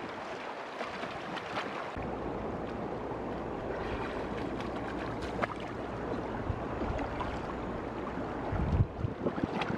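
Shallow river water splashing as a large fish thrashes and is grabbed by hand, over a steady rush of flowing water. Wind rumbles on the microphone from about two seconds in, and there is a louder flurry of splashes near the end.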